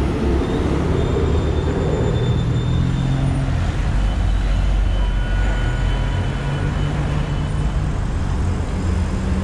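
Busy city street traffic: cars and minibuses driving past through an intersection, a steady rumble of engines and tyres.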